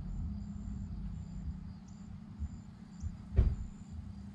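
Primary fluid pouring from a plastic bottle into a Harley-Davidson's primary chaincase over a low steady rumble, with one sharp knock about three and a half seconds in.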